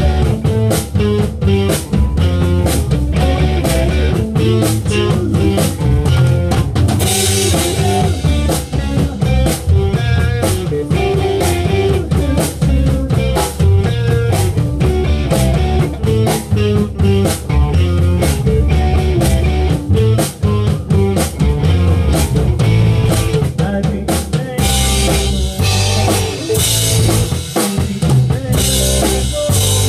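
Live band playing: a drum kit keeps a steady beat with bass drum and snare under an amplified guitar. Crash cymbals grow heavier for the last five seconds or so.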